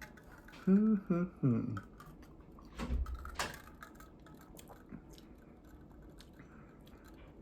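A brief hummed 'hmm' while considering a drink, then a knock about three seconds in and scattered faint clicks, typical of a glass of cocktail with ice being handled and set down.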